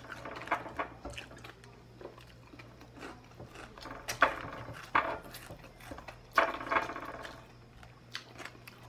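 Close-up chewing and biting of crunchy fried dried danggit (rabbitfish), with irregular crackly crunches and a few sharp clicks.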